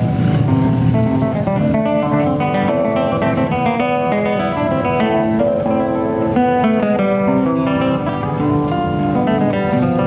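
Solo nylon-string classical guitar played fingerstyle: a continuous flowing run of plucked notes and chords.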